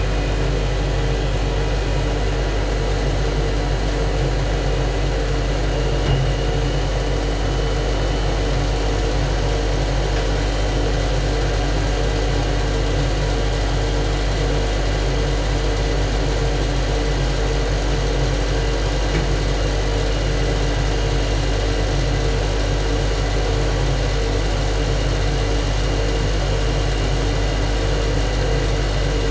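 Ship's engine-room machinery running. It makes a loud, steady drone with a deep low hum and several constant tones above it.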